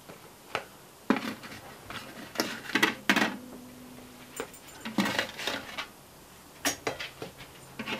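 Spatula scraping and knocking on a metal baking sheet and ceramic plates as baked English muffins are lifted off the pan and served, a series of short scrapes and clinks.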